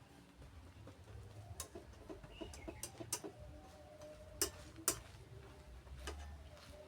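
Cooking utensils and cookware clinking and knocking, a handful of sharp hits with the two loudest close together near the middle. Faint wavering calls sound in the background.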